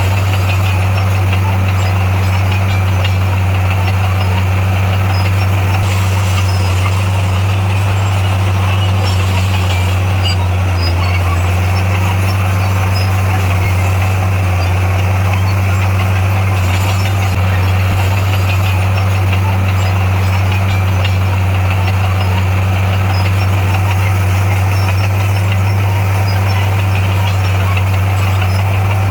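Heavy-equipment diesel engine running at a steady speed, a constant low drone with no change in pitch.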